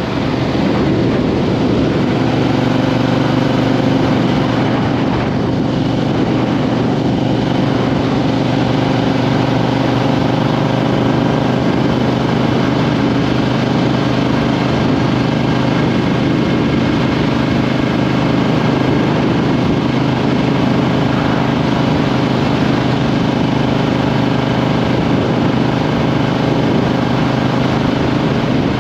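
Triumph Street Twin's 900 cc parallel-twin engine running steadily at an even pitch, its engine and exhaust note heard close up from beneath the seat.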